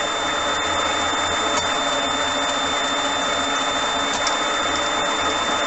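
Motor-driven high-speed headstock on a Myford lathe running steadily in reverse, its belt and spindle turning, with a steady high-pitched whine over the running noise.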